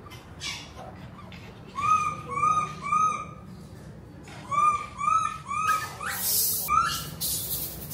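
A monkey gives short, high, arched calls: three in quick succession, a pause, three more, then one more. Two bursts of hissing noise come near the end.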